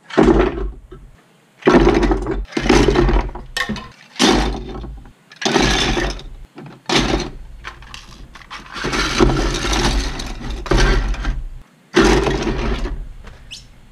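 Hard plastic 3D-printed parts clattering and scraping on a wooden workbench as they are set down and piled up, in a run of irregular bursts with short gaps.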